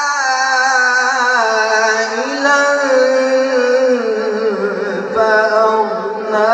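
A male Quran reciter (qari) reciting in a slow, melodic tajweed style, amplified through a microphone, holding long ornamented notes that waver up and down in pitch. He breaks off briefly about five seconds in and starts a new phrase.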